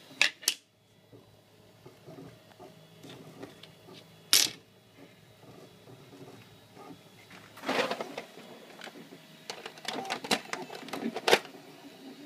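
Handling noises: two sharp clicks right at the start and another about four seconds in, then a rustle and a run of clicks and clinks as hand tools in a tool tray are moved near the end. Underneath is the faint steady hum of an Ultimaker 2 3D printer running.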